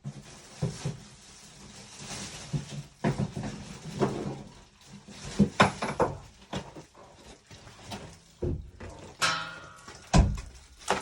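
Bidet toilet seat and fittings being handled and moved about: a series of irregular knocks and clunks, with a short squeak about nine seconds in.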